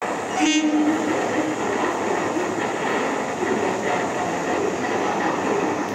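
Railway station platform noise: a steady din of trains, with a brief pitched tone about half a second in.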